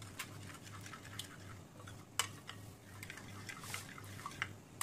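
Metal spoon stirring thinned curd in a ceramic bowl, clinking and scraping against the bowl in quick irregular strokes, with one sharper clink about two seconds in.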